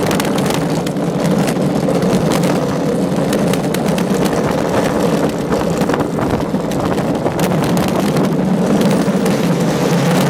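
Alpine slide sled rolling fast down its concrete track: a loud, steady rumble from the wheels on the track, broken by a few sharp clicks from bumps and joints.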